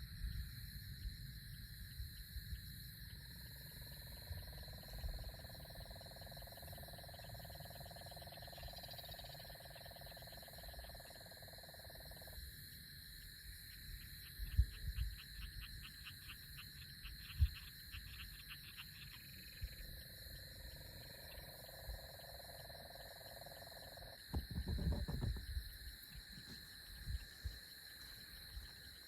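Night storm ambience: a steady high-pitched drone of insects with bursts of fast ticking calls, and a long pitched animal call in the background. Low thumps and rumbles of thunder rise a couple of times in the middle and again near the end.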